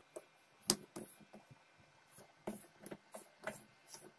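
Faint metallic clicks and scrapes as the lid and threaded screw plunger of a brass sev-maker press are fitted and turned by hand. There are about a dozen small irregular ticks, the loudest just under a second in.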